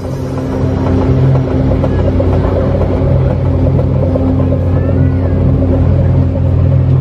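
Boat engine running with a steady low drone, as a small motor launch crosses the harbour.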